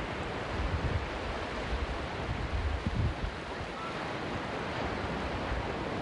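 Ocean surf breaking offshore and washing up the sand as a steady rushing noise, with wind rumbling on the microphone in uneven gusts.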